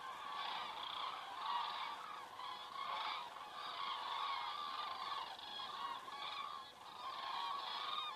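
A flock of common cranes calling, many trumpeting calls overlapping without a break.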